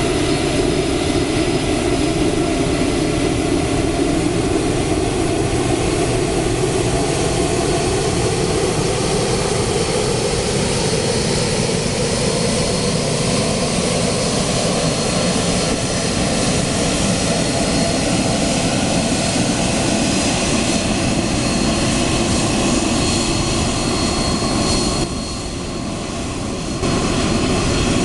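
Boeing 767-300 freighter's jet engines running at taxi power as the aircraft rolls past close by. It is a steady rushing noise with a whining tone that slowly glides in pitch, and it dips for about two seconds near the end.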